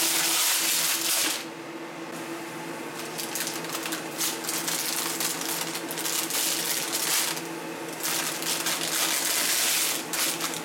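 Baking paper rustling and crackling with small knocks as baked pretzels are lifted and moved on a baking tray. A kitchen extractor fan hums steadily underneath.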